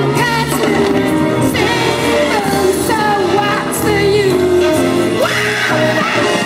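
Music with a singer's voice, playing loudly and continuously.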